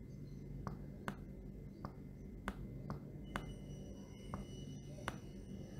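Faint, irregular light clicks and taps of a stylus writing on a drawing tablet, about ten in all, over a steady low hum. A faint high whine comes in a little past three seconds in.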